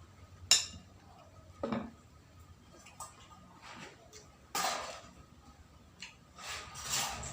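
Tableware clinking and knocking: one sharp clink about half a second in, the loudest, then a few softer knocks and scrapes spaced a second or two apart.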